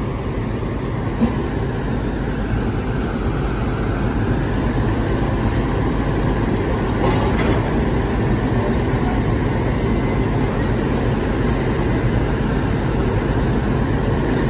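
Steady low rumble of heavy engines running, with a single sharp click about a second in.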